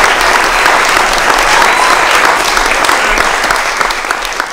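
Applause, many hands clapping in a dense patter that thins and fades away near the end.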